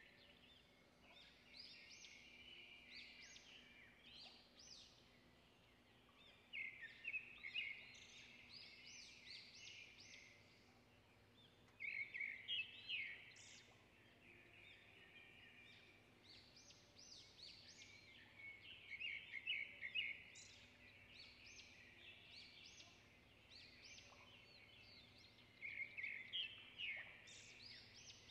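Faint birds chirping and trilling, in louder bouts every few seconds with softer chirps between.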